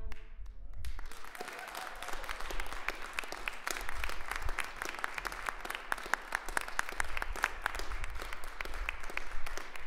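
A string quartet's final chord cuts off at the very start, then audience applause begins about a second in and keeps going, a dense patter of many hands clapping.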